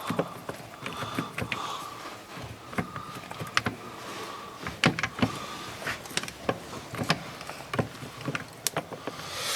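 Sharp metallic clicks and knocks of parts and hand tools being handled on the engine's clutch side, with a brief whirring tone that comes and goes several times.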